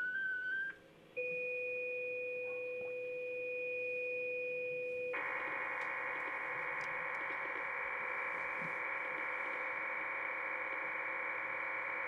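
MT63-2000L digital data signal received on the ham transceiver and heard through its loudspeaker: a brief run of stepping tones (the RSID mode identifier), then two steady tones at the low and high edges of the signal, then about five seconds in the full MT63 signal starts, a dense steady warbling chord of many tones that carries the message text.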